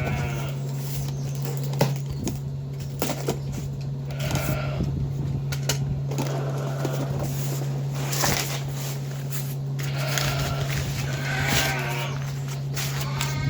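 Farm animals bleating several times, each a wavering call, about four, eight and eleven to thirteen seconds in, over a steady low hum. A few sharp clicks and knocks come in between.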